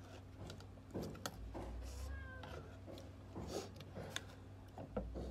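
Eating sounds: a metal spoon clinking and scraping in a ceramic bowl of vinegar dip, and cucumber slices being bitten and chewed, as scattered sharp clicks and crunches. A brief faint wavering high call comes about two seconds in.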